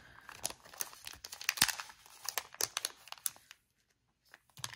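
Thin clear plastic zip-top bag crinkling and crackling as it is handled and pulled open to get at a wax melt, in quick irregular crackles with a sharp one about a second and a half in. It stops for under a second a little past the middle, then the crackling picks up again.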